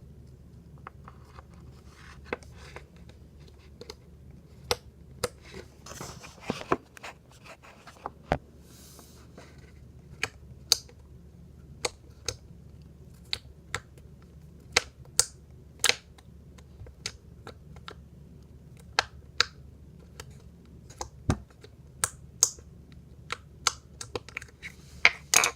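Slime being poked with one finger, giving irregular sharp clicks and pops, roughly one or two a second, with a brief squishy rustle now and then.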